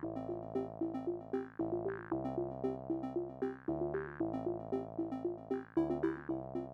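Background music: an electronic synthesizer track with a repeating pattern of short notes over bass notes that change about once a second.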